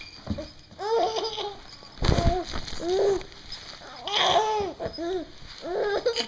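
Baby girl laughing in repeated short bursts of giggles, with a fuller laugh a little after four seconds. A brief muffled rumble on the microphone about two seconds in.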